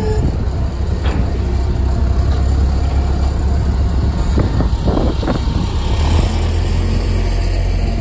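Construction machinery engine running steadily with a low rumble, with a few faint knocks about halfway through.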